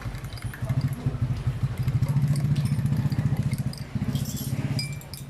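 A small motorcycle engine running close by, its pulsing beat swelling in the middle and easing off near the end, with a few light clinks and rattles.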